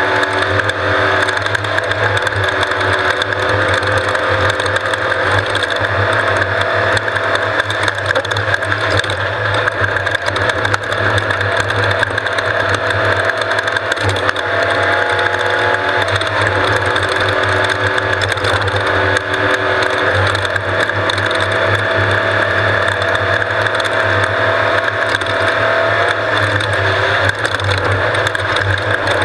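An off-road race vehicle's engine running steadily, its pitch drifting a little, under continuous rattling and clattering of the vehicle's parts.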